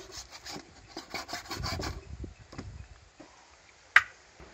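Kitchen knife sawing through raw chicken on a wooden chopping board: a run of short scraping strokes, then a single sharp knock near the end.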